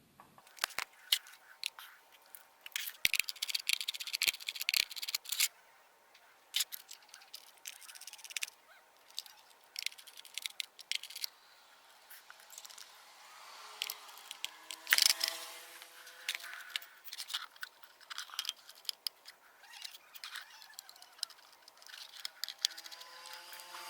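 Irregular clicks, taps and rattles of plastic and metal as a small PWM solar charge controller and its wires are handled and plugged in, with one sharper knock about fifteen seconds in.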